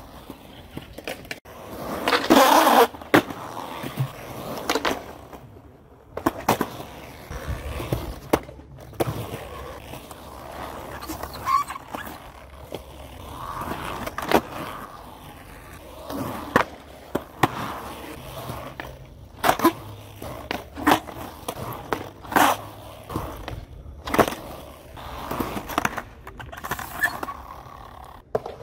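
Skateboard wheels rolling over concrete ramps, with repeated sharp clacks of the board and trucks at tricks and landings.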